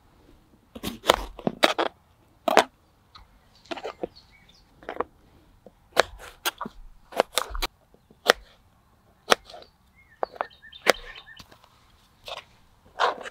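Knife chopping a bell pepper on a plastic cutting board: a string of sharp, irregular knocks and crunches as the blade cuts through and strikes the board.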